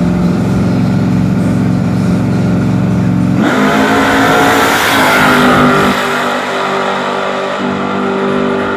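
Drag-racing street car's engine held at steady revs on the starting line, then launching about three and a half seconds in: a sudden loud burst as the car pulls away down the strip, the engine note climbing and stepping up through the gears as it draws off.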